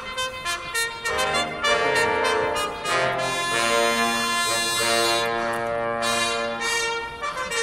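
Military brass band playing: trumpets and trombones sounding several notes together in harmony, with some notes held for a second or more.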